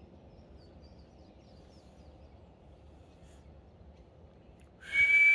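Faint bird chirps over a low outdoor background. Near the end, a loud, steady, high-pitched human whistle starts: a person whistling to call a cat.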